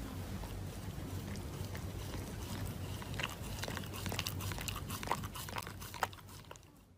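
A Shiba Inu chewing and biting at a paper face mask held in its paws, making small crackles and clicks that get busier about halfway through, over a steady low hum.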